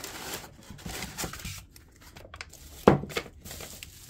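Plastic packaging bags and foam packing rustling and crinkling as they are handled, with one short, sharp knock about three seconds in, the loudest sound.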